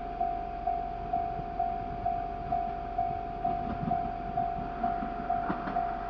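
Japanese level-crossing warning bell ringing steadily at about two strokes a second, heard through the car's windscreen. From about four seconds in, the rumble of the approaching KiHa 110 diesel railcar grows louder under it.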